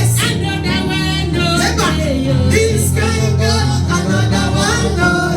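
Church choir singing a worship song over continuous instrumental backing with a steady bass line.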